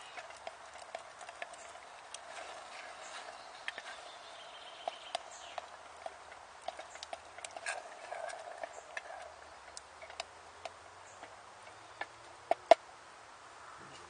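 Wooden spoon stirring a thick tomato sauce in a metal pot, scraping and tapping irregularly against the pot's side, with two louder knocks near the end.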